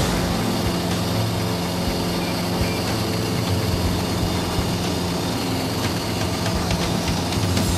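Steady engine drone of an aircraft in flight, a constant low hum under an even rush of air noise.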